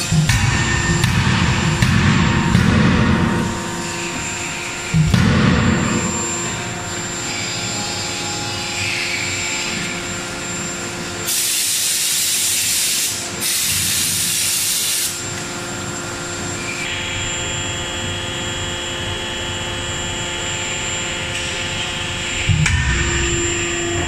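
A 63 kJ CNC closed-die forging hammer striking a hot gear blank in a run of heavy blows for the first few seconds, with another hard burst about five seconds in and more near the end, over a steady machine hum. Midway come two long blasts of compressed-air hiss, a couple of seconds each, as the die is blown clear of scale.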